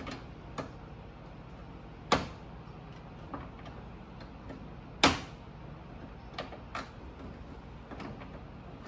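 Sharp plastic clicks and snaps as pliers cut and push out the clips on a BMW's active grille shutter parts: two loud snaps about two and five seconds in, with lighter clicks between and after.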